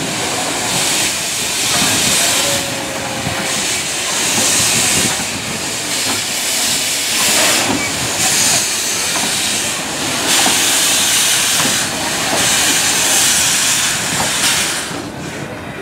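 C56 steam locomotive moving slowly with steam hissing from its cylinder drain cocks, the hiss surging roughly every two seconds.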